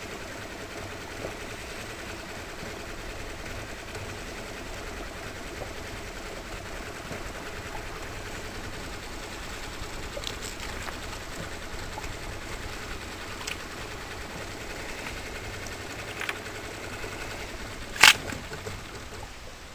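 Fishing reel cranked steadily, a steady mechanical whirr as a squid is wound in on a squid jig, with a few light clicks. Near the end one short, sharp smack stands out loudly.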